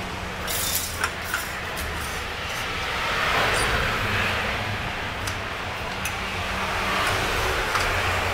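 Steady low workshop rumble with light metallic clicks and taps, a cluster about a second in and a few more later, as thin painted sheet metal is slid and set into the clamping jaws of a manual sheet-metal bending brake.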